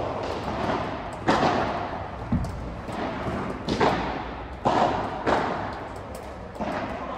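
Padel rally: the ball popping off solid padel rackets and bouncing off the court and walls, a sharp knock roughly every second, each one echoing in the large covered hall.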